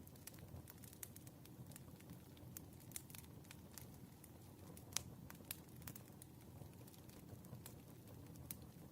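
Wood fire crackling: frequent sharp pops and snaps over a low steady rumble, with one louder pop about five seconds in.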